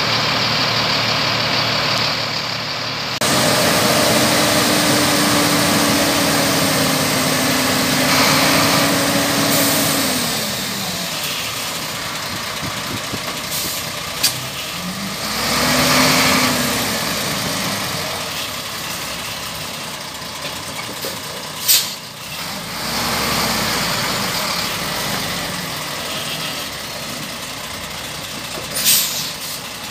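Diesel engine of a Zoomlion QY50 50-tonne truck crane running, its pitch rising and falling a few times as it is revved. Three short sharp noises cut in, about halfway through and near the end.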